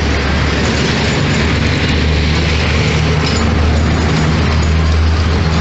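Airbus A320neo jet with CFM LEAP-1A engines passing close by, a loud steady roar with a deep rumble underneath.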